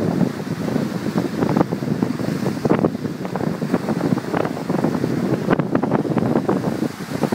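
Wind buffeting the microphone in uneven gusts, mixed with the wash of sea surf.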